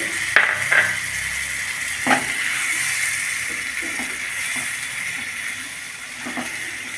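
Prawn curry sizzling and simmering in a non-stick kadai, its gravy just thinned with a little water, as a spatula stirs it. A few sharp taps of the spatula against the pan stand out about half a second, a second and two seconds in, with fainter scrapes and knocks after.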